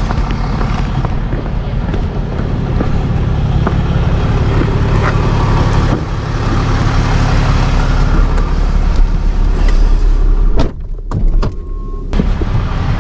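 Tow truck engine running steadily as the truck maneuvers slowly on a steep driveway. The sound is briefly muffled about eleven seconds in.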